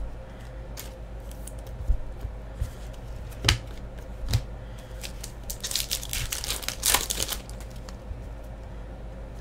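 Hockey trading cards being handled and shuffled by hand: papery crinkling with a few sharp clicks, and a denser burst of crinkling about six to seven seconds in.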